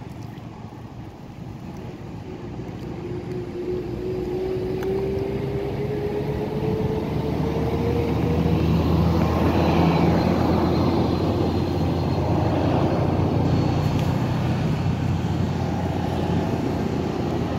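A motor vehicle's engine growing steadily louder over several seconds with a slowly rising whine, then running loud and steady.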